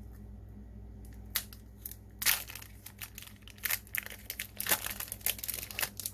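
Crinkling and tearing of a foil trading-card booster pack wrapper being handled and torn open, in irregular crackles that come thickest in the second half.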